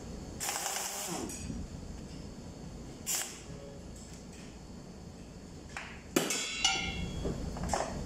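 Air impact wrench running in short bursts on bolts at the top of a Toyota 14Z diesel engine's cylinder head: a longer burst about half a second in, a short one near three seconds, then sharp metal clanks and a ringing clink of steel in the last two seconds as the tool is handled.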